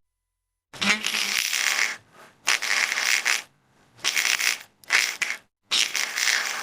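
Sound effects made for an extinct predatory fish (Hyneria): five short, harsh, hissy bursts, each under about a second, with brief silences between. They start a little under a second in.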